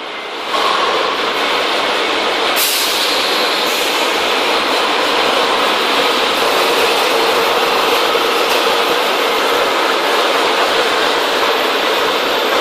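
Steady, loud machine noise, rising about half a second in and gaining a brighter hiss from about two and a half seconds.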